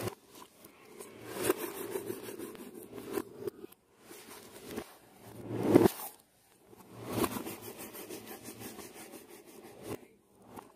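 Taped cardboard parcel being handled and turned over on a wooden table: rasping scrapes of cardboard and packing tape, with a knock about six seconds in as it is set down on its end.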